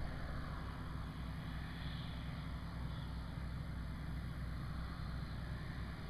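Distant, steady drone of a Thrush 510 crop-dusting plane's engine across open farmland.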